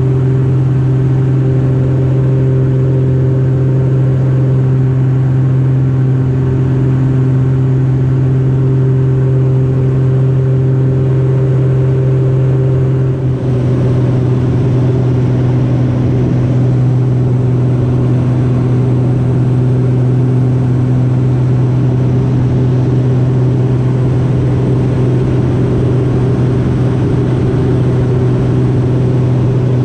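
Steen Skybolt biplane's piston engine and propeller running steadily in cruise flight, heard from the open cockpit. The tone changes abruptly once, about thirteen seconds in.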